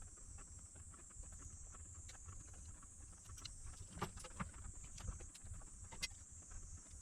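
Faint, irregular small clicks and taps of hand tools working on an inverter's circuit board during parts replacement, over a steady high hiss and low hum.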